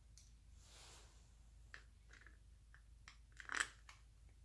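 A few light metal clicks from a hand ratchet and socket being worked on a bolt, with a louder clatter of clicks about three and a half seconds in.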